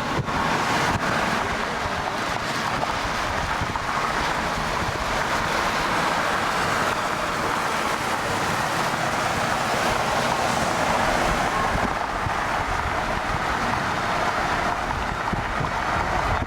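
Steady rushing wind and vehicle noise inside a car.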